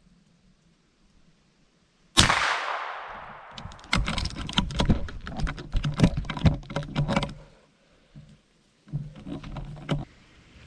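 A single scoped rifle shot about two seconds in, its echo dying away over a second or so. Then footsteps crunching through dry fallen leaves, pausing and starting again near the end.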